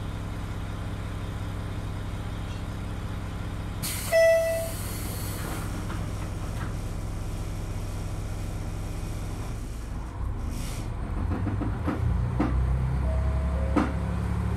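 KiHa 200 series diesel railcar's engine idling steadily, heard from inside the car. About four seconds in comes a short, loud tone with a hiss of air; from about ten seconds the engine revs up and grows louder as the railcar starts to pull away.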